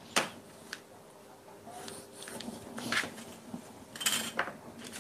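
A metal ruler and paper pattern pieces handled on a table: a sharp tap just after the start, then a few lighter taps and paper rustles around the three- and four-second marks.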